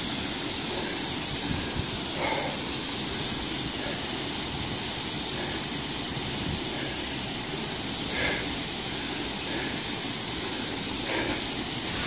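Steady rushing of falling water from a waterfall, an even hiss with no breaks.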